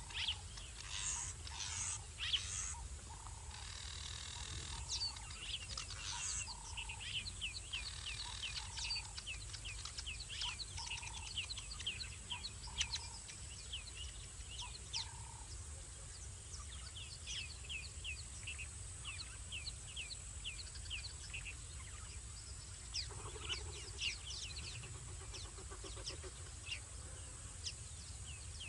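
Night ambience of many short chirping calls from small animals, each a quick high chirp dropping in pitch, repeated all through, over a steady low background rumble.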